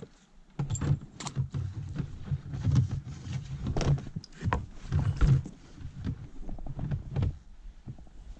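Irregular knocks, bumps and rustling from a landing net being handled over the side of an inflatable boat, its frame and handle knocking against the boat's tube and gear. The sounds thin out and die down near the end.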